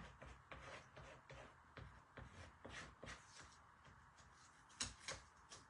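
A paint scraper scratching paint off a painted craft sign in short, irregular strokes, faint, with a couple of louder scrapes about five seconds in. The top coat is being scraped away to distress it, lifting where wax was put underneath.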